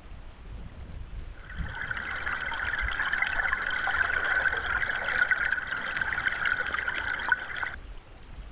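Water running or pouring, starting about a second and a half in and stopping abruptly near the end.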